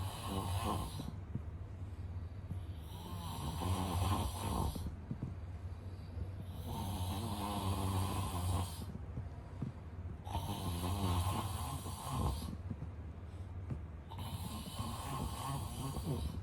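A man snoring, one snore on each breath, about one every three and a half to four seconds, over a steady low drone.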